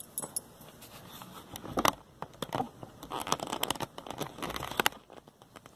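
Handling noise: irregular clicks, scraping and rustling as the camera is picked up and moved, with the sharpest clicks about two seconds in and near the end.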